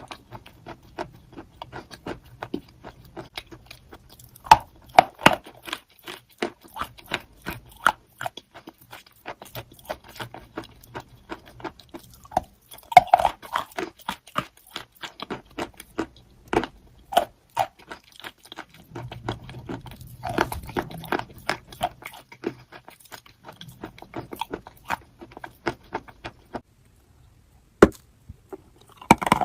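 A person biting and chewing crunchy chalk close to the microphone: a dense run of sharp cracks and crunches, with a brief pause near the end.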